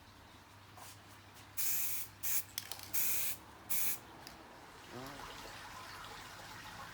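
Primer being sprayed onto car bodywork for a light dust coat: about five short hissing bursts in two seconds, the longest about half a second.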